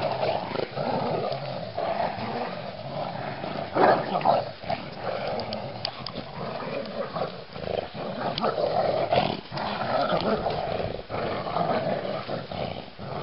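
Dogs, a Rottweiler and a Staffordshire bull terrier cross, growling almost continuously while tugging at a toy in play, with a few louder bursts about four seconds in.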